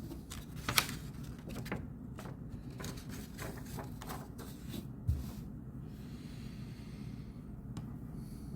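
Desk sounds of someone studying: a run of small clicks and scratches of pen and paper, with a sharper tap about a second in and a low thump about five seconds in, over a steady low hum.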